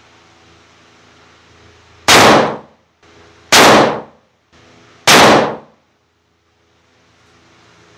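Three rifle shots from a 7mm PRC Mossberg Patriot bolt-action, about a second and a half apart, each loud with a short ringing tail: a three-shot test group of Berger 195 gr handloads over Hodgdon Retumbo.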